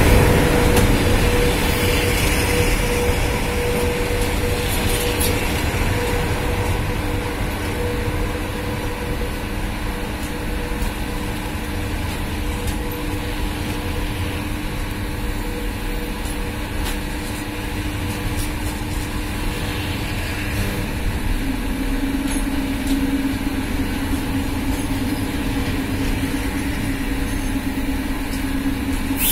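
Passenger coaches of an arriving train rolling slowly past a platform, wheels running steadily over the rails. The rumble is loudest at the start and then eases off. A faint steady whine fades early on, while a lower steady tone grows louder about two-thirds of the way through.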